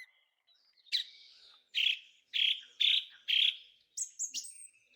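Bird chirping: five short calls in a row, then three higher, quicker chirps near the end.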